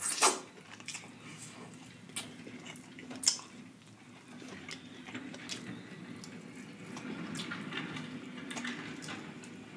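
Close-up wet eating sounds: lips smacking and fingers being sucked clean of butter sauce, with chewing. Sharp wet smacks come in the first few seconds, the loudest about three seconds in, then softer steady chewing.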